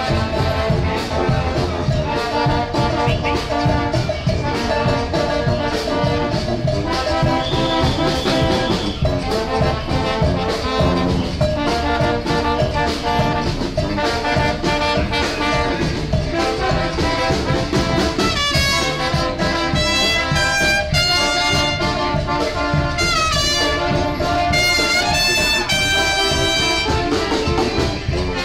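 Lively music with a brass-like melody over a steady beat, with higher melodic runs in the second half.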